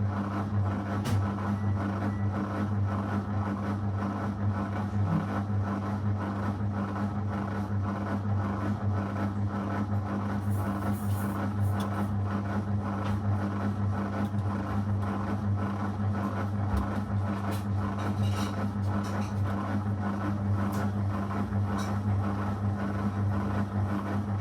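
Zanussi FL984CN front-loading washing machine running mid-cycle on a 35° wash, with a steady low hum and mechanical noise.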